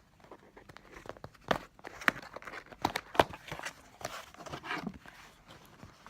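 Packaging being handled while a headphone box is opened: scattered clicks and taps, with some rustling.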